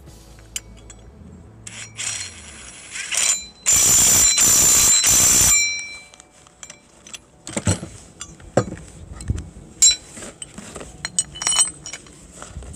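Cordless half-inch impact wrench driving a 24 mm nut down onto a sawmill leveling foot's threaded rod: a lighter run for about a second, then a loud burst of hammering for about two seconds as the nut tightens. Scattered metallic clinks of steel parts and a hand wrench being handled follow.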